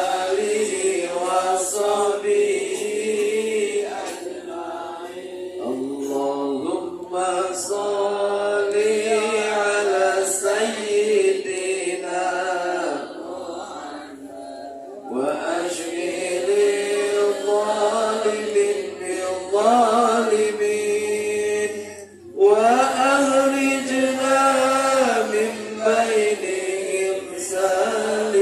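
Sholawat, Arabic devotional praise of the Prophet, chanted in long drawn-out melodic lines through a microphone, with a short break about two-thirds of the way through.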